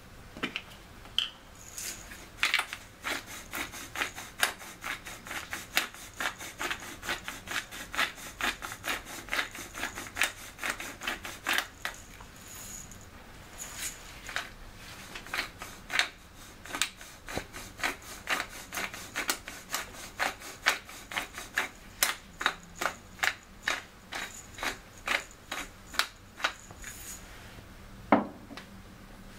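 A hand-turned spice mill grinding over a dish of vegetables: a long run of dry crunching clicks, about three a second, with a single louder knock near the end.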